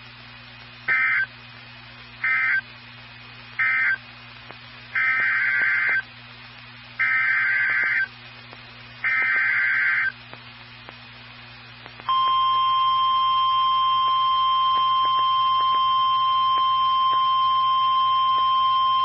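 Emergency Alert System data bursts on NOAA Weather Radio: three short bursts of digital SAME code, the end-of-message for the warning just read, then three one-second bursts, the coded header of the next warning, each a second apart. About twelve seconds in, the steady 1050 Hz NOAA warning alarm tone starts and holds.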